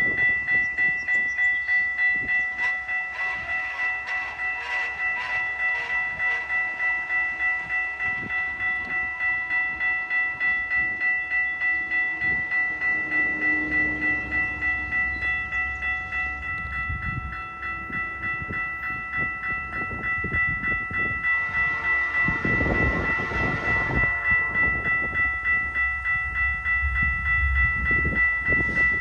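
CN freight train Q107 rolling past, wheels and cars rumbling and clacking on the rails. Over it, a steady ring pulses a little over twice a second throughout, and there is a louder burst of sound from about 22 to 24 seconds in.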